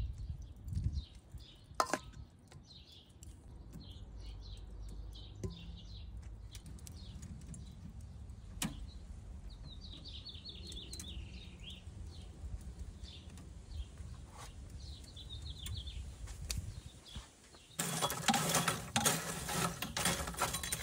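Birds chirping over a low outdoor rumble, with a couple of sharp metallic clicks from the wire rotisserie basket being handled. Near the end a much louder, steady mechanical whirring starts: the rotisserie spit motor turning.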